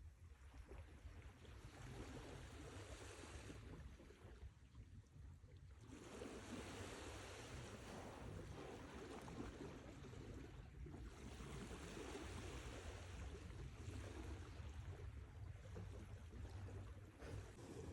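Sea waves washing ashore and drawing back in slow surges, with a lull about four seconds in and a brief one near eleven seconds, over a low rumble.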